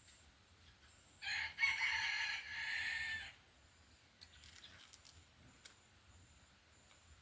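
A rooster crowing once, a loud call of about two seconds starting about a second in.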